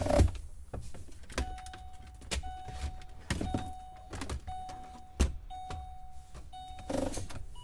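Mercury Mountaineer's dashboard warning chime beeping steadily, about once a second, with the key in the ignition. Plastic clicks and knocks come through it as the dash trim bezel is worked free, the loudest near the start and about five seconds in.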